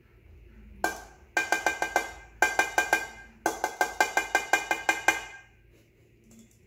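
Stainless-steel mesh sieve knocked repeatedly on the rim of a plastic jug to get the strained custard through: one knock, then three quick runs of sharp taps, about six a second, each with a brief metallic ring.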